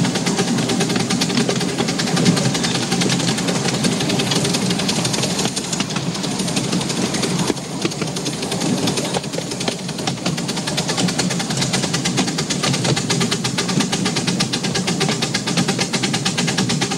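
A 7¼-inch gauge miniature railway locomotive working its train up a steep climb, heard from the car just behind it: a steady, fast mechanical beat mixed with wheel and track noise, dipping briefly in level about seven and a half seconds in.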